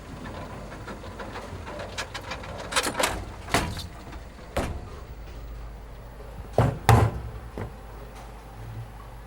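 A series of sharp knocks and clatters, the loudest two close together about two-thirds of the way in, over a steady low hum.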